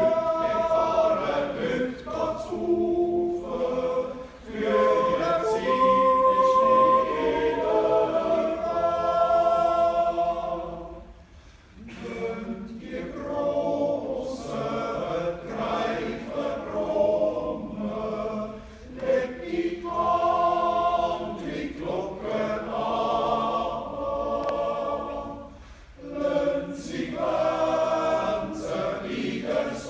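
Men's yodel choir, a double quartet, singing a Swiss choral yodel song in several parts, a cappella. The singing comes in long phrases with brief breaks about 11 and 26 seconds in.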